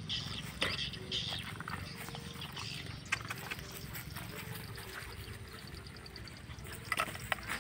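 Several dogs eating from a metal bowl: chewing and snuffling, with many sharp clicks and knocks of teeth and food against the bowl. A cluster of louder clicks comes near the end.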